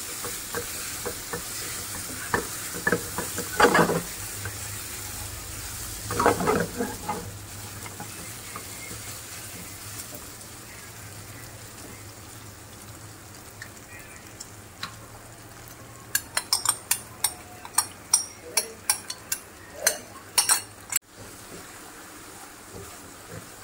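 Julienne-cut marinated chicken strips sizzling steadily in oil in a non-stick frying pan while a spatula stirs and scrapes them around. In the last third, a quick run of sharp taps as the spatula knocks against the pan.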